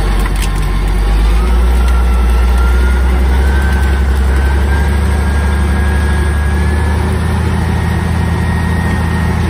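Caterpillar D8 crawler dozer's diesel engine running steadily under load, heard from inside the cab, with a thin whine that climbs slowly in pitch over the first several seconds.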